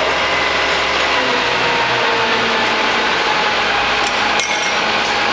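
An engine runs loudly and steadily, its pitch drifting slowly, with a short click about four seconds in.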